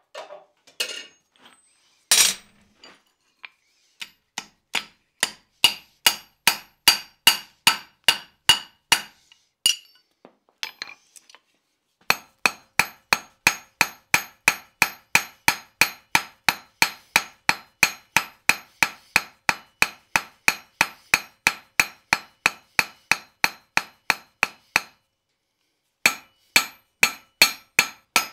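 Hand hammer striking a glowing iron nail rod on the anvil, drawing out the nail's tapered point. The blows come steadily, a little over two a second, each one ringing the anvil, with two short breaks.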